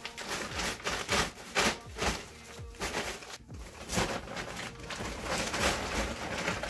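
Large woven plastic tote bags rustling and crinkling as they are lifted, upended and shaken, with clothes spilling out onto a bed, in a run of irregular rustles.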